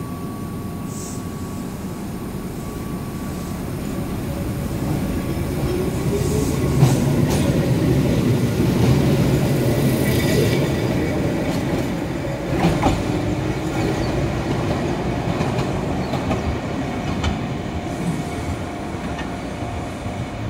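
Keihan 600-series high-floor tram running on the track: wheels clicking over the rail joints and steady running noise that builds through the first half, with a faint rising whine, then slowly eases.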